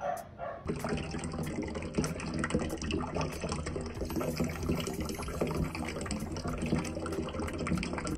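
Water boiling hard in a stainless steel pot: a dense bubbling and popping that starts about a second in and cuts off suddenly at the end.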